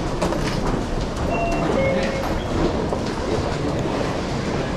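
Busy railway station concourse: a steady low rumble of trains, with many footsteps on a tiled floor. A few brief high tones sound around the middle.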